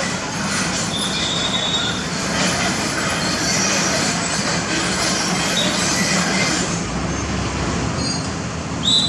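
Heavy road-construction machinery running: a steady engine drone under metallic grinding and scraping, with brief high squeals and a short, louder squeal near the end.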